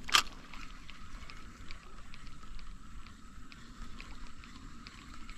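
A fishing cast with a spinning rod: one quick, sharp swish of the rod and line just after the start. Then a faint steady hum with light ticks about twice a second.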